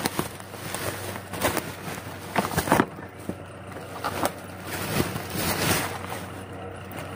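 Black plastic bubble wrap crinkling and rustling as it is pulled off a package by hand, in uneven handling noise with a few sharper crackles.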